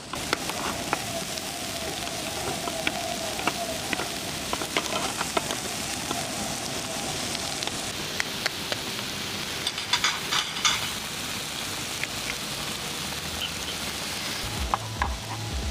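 Food frying on an electric Korean BBQ grill plate, with ramen broth boiling in the centre pot: a steady sizzle dotted with small pops and crackles, and a quick run of clicks about ten seconds in. Background music with a beat comes in near the end.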